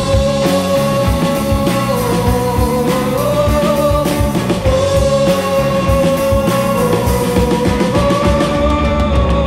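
Indie rock band playing a song live, with drums, bass guitar and sung vocals.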